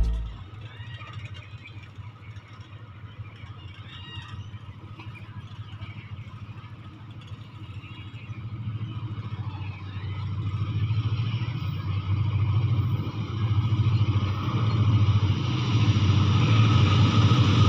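Diesel locomotive approaching with its train: a low, steady engine rumble, faint at first and growing steadily louder over the second half as it nears.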